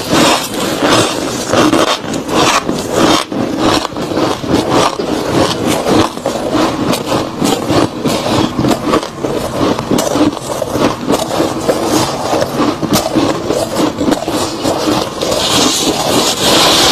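Close-miked chewing and crunching of soft, crispy freezer frost, a steady run of small crackles.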